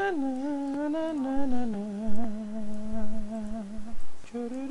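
A voice humming a slow wordless tune, sliding between notes and then holding one low note for about two seconds, breaking off briefly near the end before going on.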